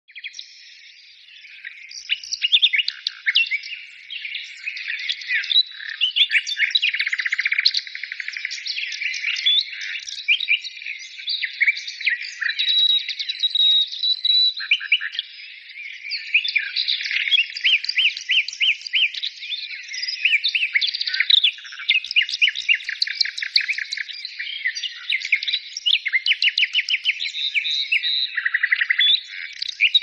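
Songbirds singing together in a dense, continuous chorus of high chirps, whistles and rapid trills. It starts softly and fills in after about a second and a half.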